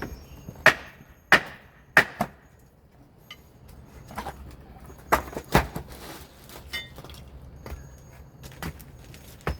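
Sharp knocks on wood during carpentry demolition, irregular and separate: a quick run of four in the first two seconds or so, then scattered single blows.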